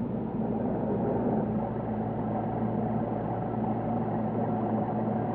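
Laboratory flow tank's motor running with a steady low hum.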